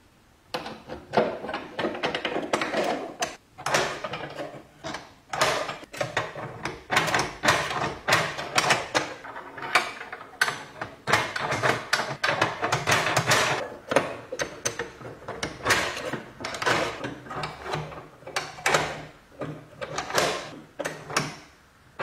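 Restored old door lock being worked over and over: the bolt and latch sliding in and out with many clicks and scrapes in quick succession.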